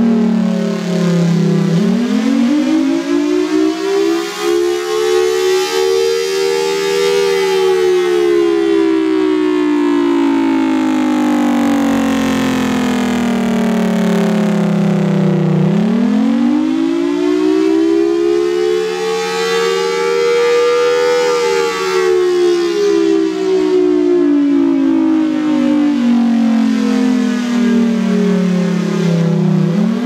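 Federal Signal Thunderbolt 1003 outdoor warning siren sounding a slow wail. Its pitch climbs over about five seconds, then slides down over about eight, twice, and starts a new climb near the end. This rising-and-falling wail is the Attack signal of its test cycle.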